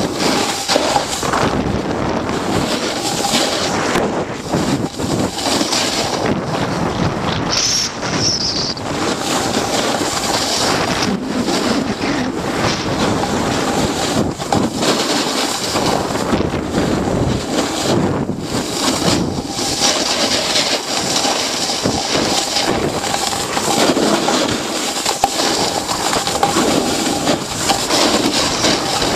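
Wind rushing over the microphone of a handheld Flip camcorder carried down a ski slope: a loud, constant noise that rises and falls.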